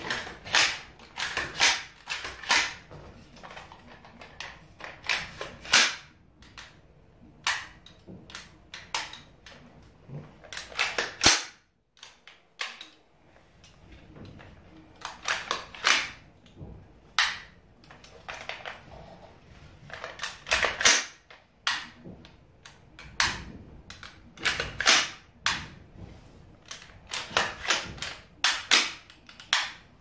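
AR-15-style rifle (DPMS A-15) charging handle being pulled back and let go again and again, the bolt carrier running home with sharp metallic clacks in irregular clusters and a quieter pause near the middle. This is a function check of a newly fitted oversized charging handle latch that does not always lock the handle in place.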